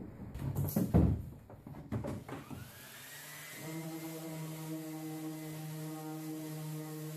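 Random orbital sander with a vacuum hose attached, sanding cured epoxy with 80-grit paper. A few knocks and handling sounds come first; about two and a half seconds in, a motor spins up with a rising whine and then runs as a steady hum.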